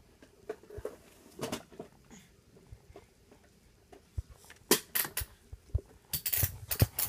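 Irregular clicks, taps and knocks on a hard plastic toy tunnel, few and faint at first, then louder and more frequent from about four and a half seconds in.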